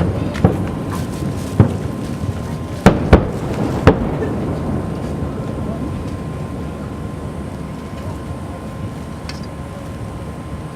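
Aerial firework shells bursting in a harbour fireworks finale: about five sharp bangs in the first four seconds, two close together near three seconds, then a low rumbling wash of noise that slowly fades.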